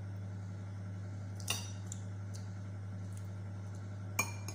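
Metal cutlery clinking against a plate twice, about a second and a half in and again near the end, each a short bright tap with a brief ring, over a steady low hum.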